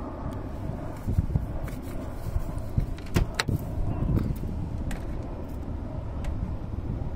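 Steady low rumble of a vehicle in motion, broken by a series of sharp clicks and knocks, the loudest a little over three seconds in.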